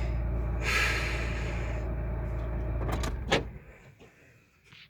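Steady low rumble of a vehicle with a brief hiss about a second in; a little over three seconds in the rumble stops and a sharp click follows, then a few faint knocks.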